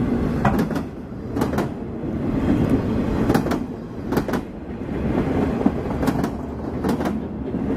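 Freight train of loaded flatcars rolling past: steady wheel rumble with sharp clicks in quick pairs, about one pair a second, as each wheel set's axles cross the rail joints.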